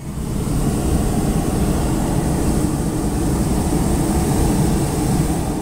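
Hot air balloon's propane burner firing: a loud steady roar that starts abruptly and cuts off near the end.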